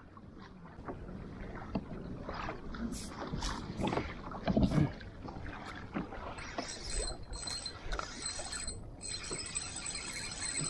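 Water lapping and sloshing against a plastic fishing kayak, with scattered knocks from the rod and gear being handled while a fish is reeled in, and one louder knock or splash about halfway through.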